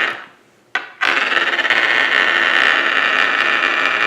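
A homemade marble spinner of hot-glued glass marbles spinning on a hard surface, making a steady rolling, rubbing whir. The first spin dies away at the start; a sharp click a little under a second in sets it spinning again, and it runs on steadily.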